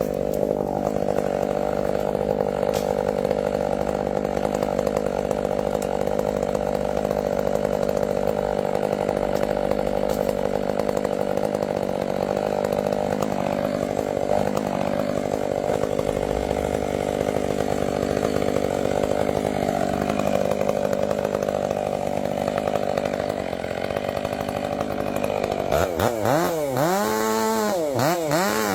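Chainsaw running steadily at high speed as it cuts through a tree. Near the end the engine revs up and down several times in quick succession.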